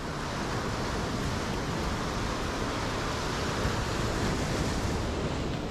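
Ocean surf rushing in over a rocky shore, a steady wash of noise that swells and eases near the end, with wind buffeting the microphone.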